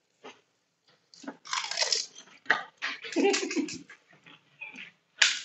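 Crunching and chewing of pani puri: crisp, hollow fried puri shells filled with spiced water breaking between the teeth, in a run of irregular bites starting about a second in.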